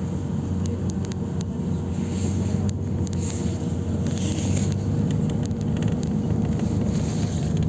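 Cabin noise of a GolAZ AKA-5225 city bus under way: a steady low drone with the hum of the rear axle, and a few light clicks and rattles.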